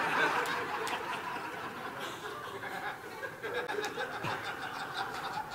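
Audience laughing: many people chuckling together at once.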